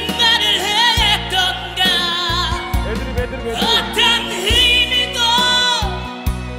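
Slow pop ballad: a male voice sings held, wavering notes over band accompaniment with a sustained bass.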